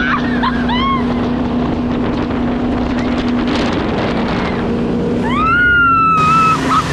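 Motorboat engine running with a steady hum, with wind on the microphone. Riders scream over it: short cries in the first second and one longer scream held for about a second near the end.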